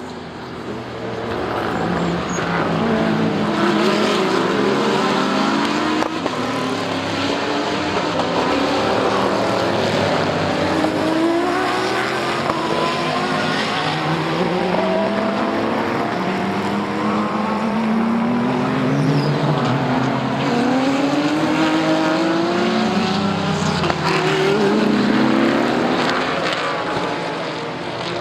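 IMSA race cars going past one after another at speed, their engines climbing in pitch through the gears with quick upshifts, several cars overlapping.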